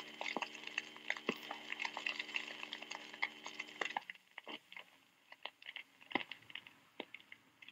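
Faint crackle and scattered clicks of an old Dictabelt police radio recording played back at half speed, with a low steady hum that stops about four seconds in; the clicks then thin out.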